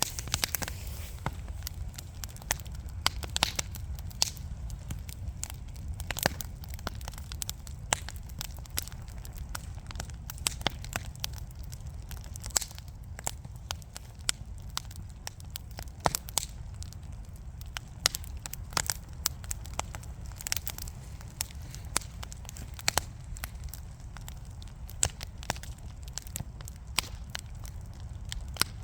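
Burning wood crackling in a fireplace: irregular sharp pops and snaps, several a second at times, over a steady low rumble of the fire.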